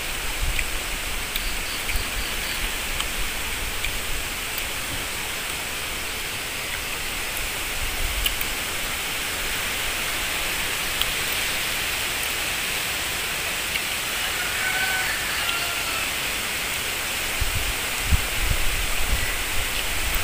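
Steady rushing outdoor hiss, with a few faint whistled notes about three-quarters of the way in and low wind rumble on the microphone near the end.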